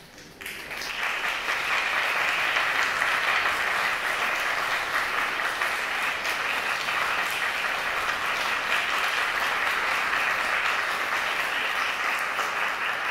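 Audience applauding, building up over the first second or two and then holding steady.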